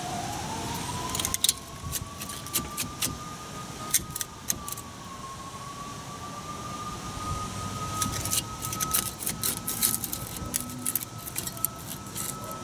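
Metal clinks and rattles of a rusty front brake caliper and its pads and clips being worked loose by hand, in scattered clusters. Underneath, a steady high whine rises in pitch during the first second and then holds.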